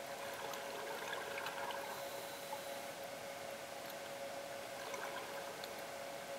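Underwater ambience recorded in a swimming pool: a steady hiss with a steady hum and faint ticks. A scuba diver's regulator breathing sounds as exhaled bubbles, swelling about a second in and again near the end.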